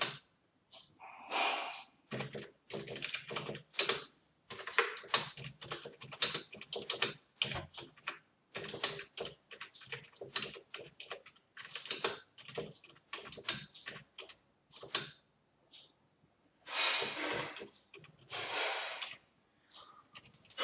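Typing on a computer keyboard: a run of irregular key clicks, several a second, with two longer hissy noises near the end.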